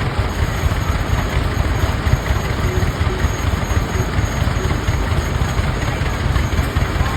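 Two-cylinder Rumely OilPull tractor engines running steadily under belt power, a continuous low, rapid chugging.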